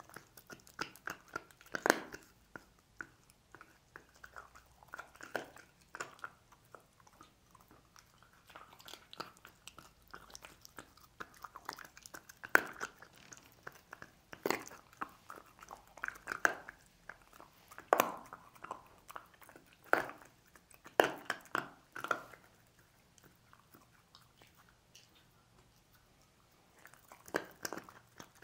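A dog crunching and gnawing pork bones (pig's trotters), with irregular sharp cracks of bone between quieter chewing. The crunching pauses for a few seconds near the end, then starts again.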